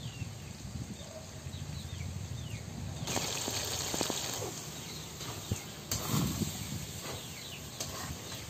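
Sliced tomatoes sizzling in hot oil on top of browned, spiced chicken in a frying pan, the hiss growing louder about three seconds in, with a few sharp clinks of the ladle against the pan. Faint short chirps sound now and then.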